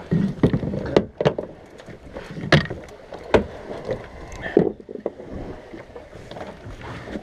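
Irregular knocks and thuds aboard a small fishing boat, over a steady wash of water and wind.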